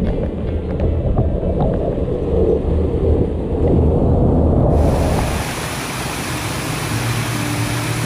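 Waterfall water pouring directly over the camera, heard as a loud, muffled low rumble. About five seconds in, the sound opens up into the full, steady rush of the waterfall.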